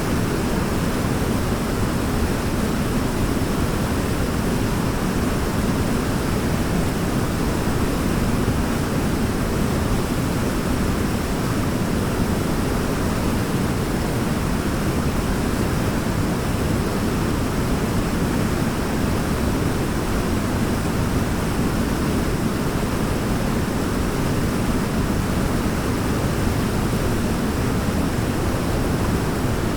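Waterfall: water falling in a steady, even rush with a deep low rumble, unchanging throughout.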